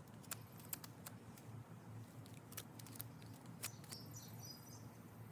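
Faint outdoor ambience: a small bird chirps briefly about four seconds in, with scattered light clicks and ticks throughout.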